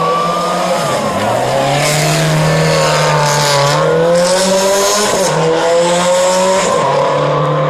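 Rally car engine revving hard. Its pitch climbs, falls and climbs again several times, each rise cut off by a sudden drop as it shifts gear.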